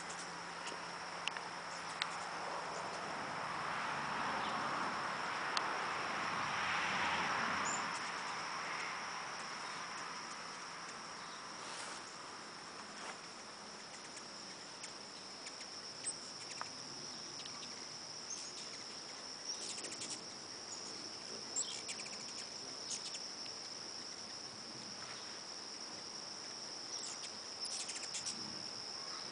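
Steady, high-pitched insect chorus trilling without a break. A broader rustling noise swells and fades in the first several seconds, and a few faint ticks and short chirps come and go later.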